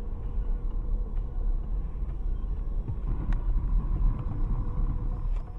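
Steady low rumble of a moving car's engine and tyres on the road, heard from inside the cabin through a dashcam microphone, with a single faint click a little past the middle.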